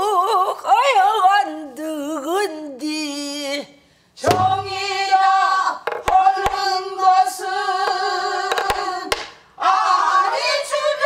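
A woman singing a Korean Namdo folk song with wide, bending vibrato, in phrases broken by short pauses. She keeps time with stick strokes on a buk barrel drum, with a low thud about four seconds in.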